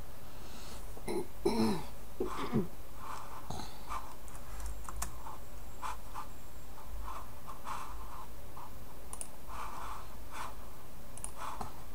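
Scattered clicks of a computer keyboard and mouse over a steady low electrical hum, with a few louder knocks between one and three seconds in.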